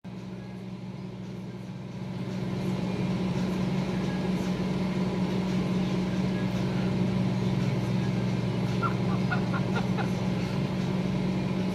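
Microwave oven running: a steady low electrical hum from its magnetron transformer and fan, growing louder over the first couple of seconds, with a few faint ticks about nine seconds in.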